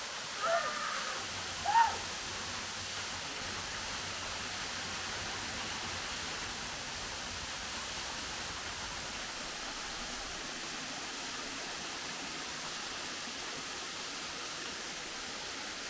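Steady rushing of a waterfall. Two short chirps sound in the first two seconds.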